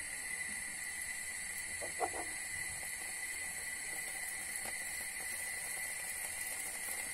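Steady hiss from a hot oiled frying pan over a gas flame as crepe batter is poured in and spreads. A brief faint knock about two seconds in.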